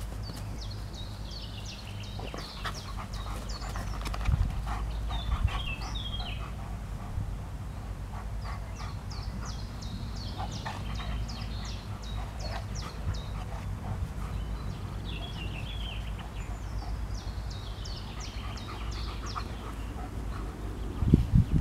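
Central Asian Shepherd Dogs panting while they play-fight, with a short, louder burst near the end.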